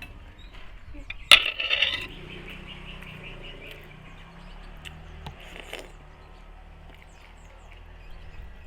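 A sharp clink about a second in, like a metal spoon striking a plate, with a short rattle after it, then scattered small clicks of eating utensils.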